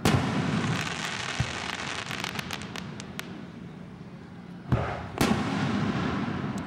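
Aerial fireworks shells bursting: a sharp bang right at the start with a rolling rumble after it and a few seconds of sharp crackling pops, then two more bangs in quick succession about three-quarters of the way through.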